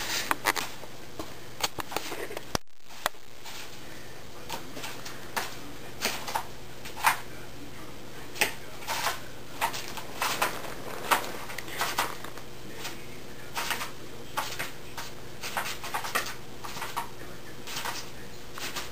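Irregular light clicks and taps, a few a second at most, over a steady low hum, with the sound cutting out for a moment about three seconds in.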